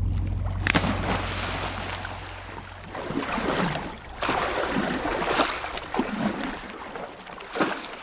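Water splashing and sloshing in repeated surges as a large crocodile lunges and thrashes at the surface, with a low hum fading out over the first couple of seconds.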